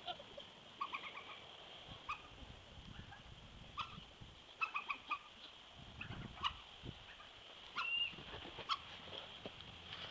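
Soft, scattered short chirps and clucks from an animal, some in quick clusters of three or four and one short rising call near the end, over a faint steady high hiss.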